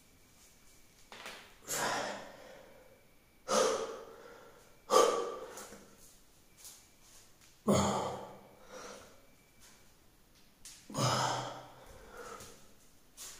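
Heavy breathing of a man doing push-ups, close to the microphone: about five loud, forceful breaths spaced one to three seconds apart, with a fainter one near the end.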